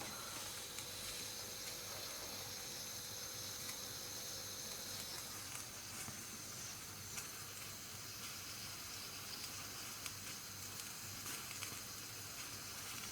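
Bialetti Mukka Express stovetop cappuccino pot hissing and sizzling on the hob as the water boils inside, with a faint thin tone that fades out about five seconds in. Coffee is leaking out of the base because the pot is not screwed together properly.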